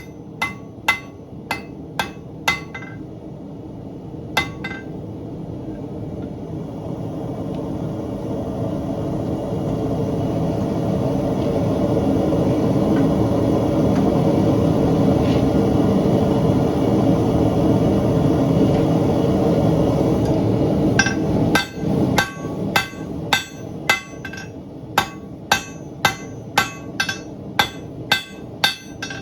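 Hammer blows on bar stock on an anvil, each strike ringing, a few at the start and a steady run of about one and a half a second in the last eight seconds. Between them a steady rushing noise builds up and holds: the forge running while the bar stock heats.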